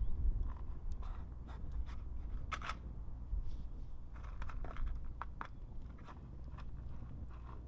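Campfire crackling: irregular sharp pops and clicks, one or two a second, over a low steady rumble.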